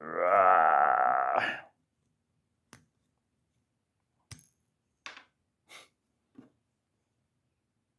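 A cordless drill/driver whirs for about a second and a half, its pitch wavering under load as it drives a screw into a wooden sledgehammer handle, and stops with a click. A few light knocks and clicks of tool handling follow.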